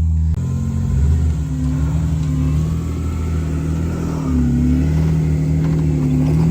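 Jeep engine working at low revs while rock crawling, its speed rising and falling several times as the throttle is fed on and off.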